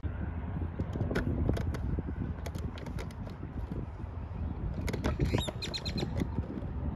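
Steady low rumble of wind buffeting the microphone, with scattered faint clicks and a quick run of about half a dozen high chirps about five seconds in.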